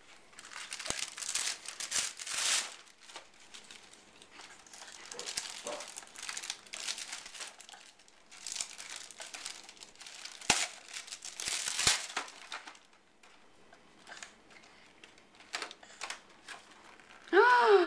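Gift wrapping paper being torn open and crinkled by hand, in irregular rustling bursts with a few sharp clicks.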